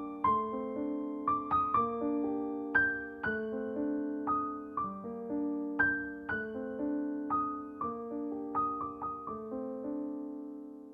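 Gentle solo piano music, playing a slow melody of single notes over sustained chords.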